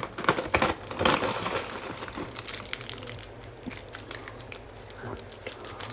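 Plastic packaging crinkling and rustling as it is handled, with a few sharper clicks in the first second.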